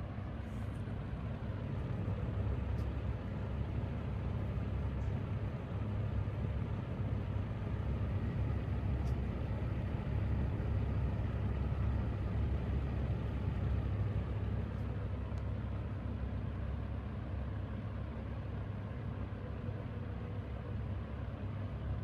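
Box fan running steadily at speed, its shaded-pole motor driving the blade set: a continuous rush of air over a low hum.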